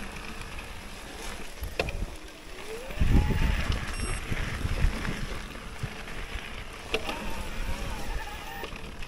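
Mountain bike descending a snowy trail: wind rushing over the microphone and the rumble of tyres and frame over rough ground, loudest a few seconds in. Two sharp knocks from the bike over bumps come about two seconds in and again about seven seconds in.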